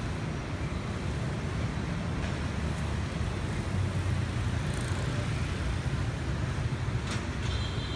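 City street traffic: motor scooters and cars passing with a steady low engine rumble. A short high tone sounds near the end.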